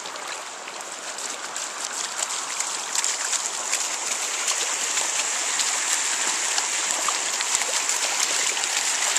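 Shallow stream flowing over a rocky bed, a steady rush of water that grows a little louder over the first few seconds, with small splashes as Siberian huskies wade through it.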